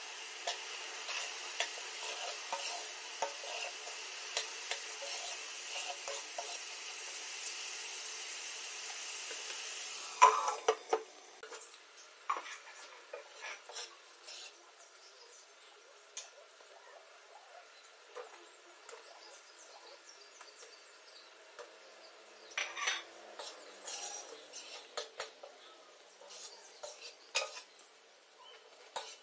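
Onion-tomato masala sizzling in a kadai with a steady hiss and small clicks. After about ten seconds the sizzle stops abruptly, and a metal spoon scrapes and clinks against the pan in scattered strokes as the masala is stirred.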